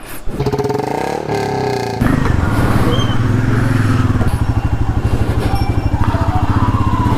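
Royal Enfield Meteor 350's single-cylinder engine running with a steady, even pulse, getting louder about two seconds in and then holding steady.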